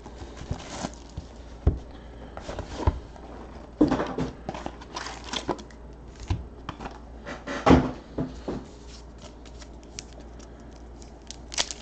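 Handling a football trading-card hobby box and its plastic-wrapped packs: crinkling rustles and scattered taps as the box is opened and the packs are set on a wooden tabletop, with louder knocks about four and eight seconds in.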